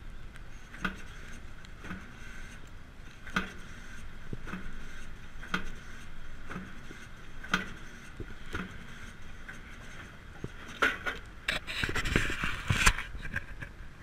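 Sharp metal clicks about once a second as a hand lever at a concrete mixer truck's discharge chute is worked back and forth, followed near the end by a louder metallic clatter and rattle.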